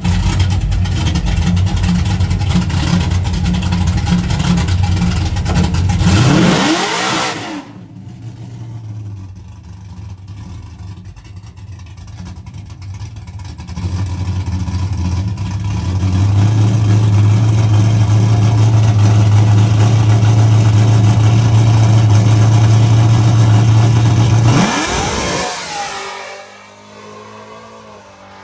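Drag-racing truck's V8 engine running loud at steady high revs, then sweeping up in pitch and dropping away about seven seconds in. After a quieter stretch, a second long run of loud steady engine sound ends with another rising sweep and fades out a couple of seconds before the end.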